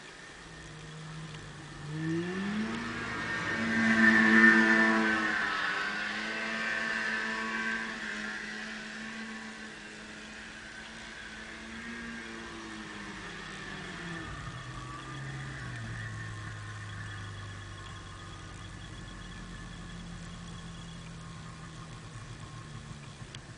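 Snowmobile engine revving up about two seconds in, loudest a couple of seconds later, holding a steady pitch, then dropping to a lower steady run about fourteen seconds in.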